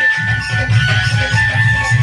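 Rhythmic dance music: a steady low drum beat, about three or four beats a second, under held high melody notes and jingling percussion.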